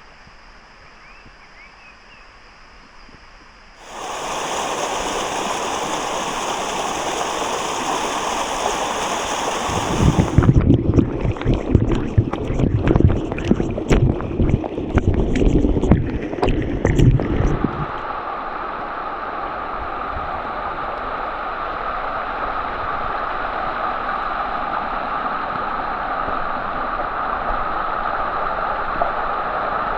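Rainwater rushing down stone steps, heard across several shots. Faint at first, it becomes a loud steady rush about four seconds in. Between about ten and eighteen seconds it turns rough, with many knocks and a heavy low rumble, then settles back to a steadier rush.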